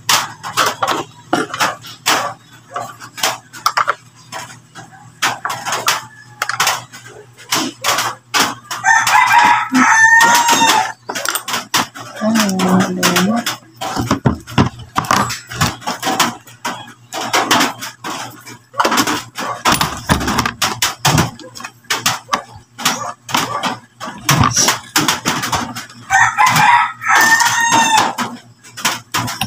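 A rooster crowing twice, about nine seconds in and again near the end, over a steady run of short clicks and knocks from a plastic solar floodlight being handled on a wooden table.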